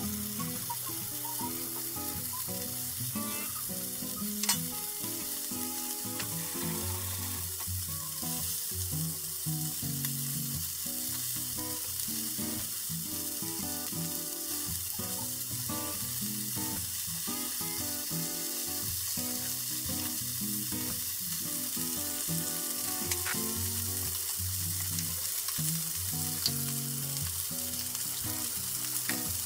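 Meat rolls sizzling steadily as they fry in oil in a nonstick frying pan, with a few sharp clicks as they are turned.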